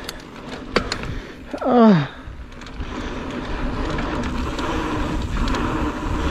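Mountain bike rolling fast down a dirt trail: a few sharp knocks over bumps in the first second, then wind and tyre noise building as speed picks up. About two seconds in the rider lets out a short cry that falls in pitch.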